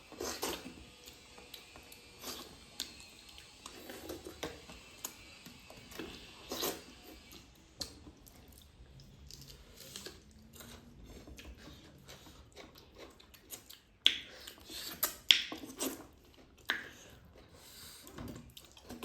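Eating sounds: soft chewing and the mixing of rice and curry, with scattered small clicks and taps on the plate, the loudest a few sharp clicks about fourteen and fifteen seconds in.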